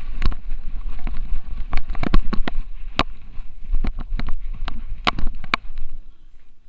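Irregular sharp knocks and rattling with a rumbling rush of handling noise from a Xiaomi Yi action camera on a dog's harness, jostled as the French Bulldog wearing it moves about.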